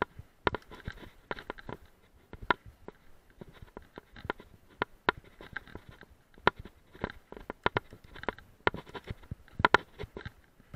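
Mountain bike rattling and knocking as it rolls over a rough, rocky trail covered in dry leaves: irregular sharp clacks several times a second, with a faint crunch and hiss from the tyres.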